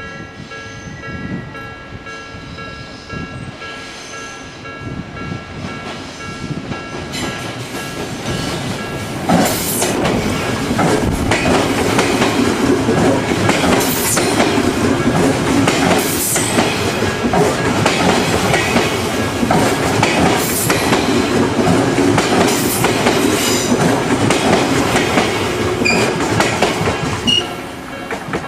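Odakyu 2000-series electric train passing a level crossing at low speed: from about nine seconds in its wheels click over the rail joints, loud until near the end. The crossing alarm rings steadily throughout, and wind buffets the microphone.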